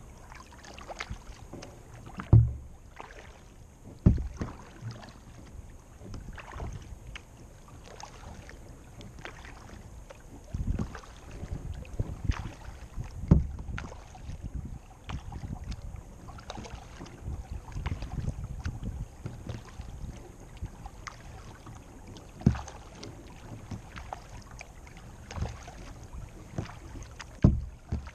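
Kayak paddling on calm water: paddle blades dipping and dripping, with a few sudden loud thumps carried through the plastic hull.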